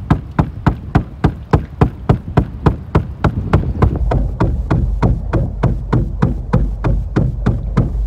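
Choppy wind-driven waves slapping against a boat hull in a quick, steady series of knocks, about four or five a second, over a low wind rumble on the microphone.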